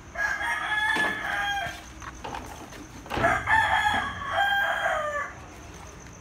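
Rooster crowing twice, each crow about two seconds long, the second beginning about three seconds in.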